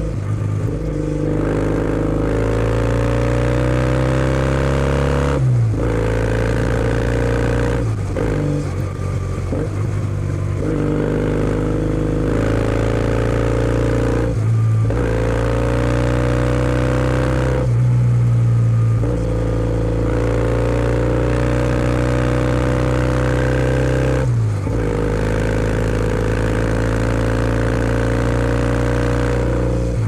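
Kawasaki W650's air-cooled parallel-twin engine running at speed through a POSH W1 aftermarket full exhaust, heard from the rider's seat. The engine note holds steady, dipping briefly several times as the throttle is rolled off and picked up again.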